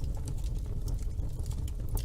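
Wood fire burning in a fireplace: a steady low rumble of flame, with frequent irregular sharp crackles and pops from the burning wood.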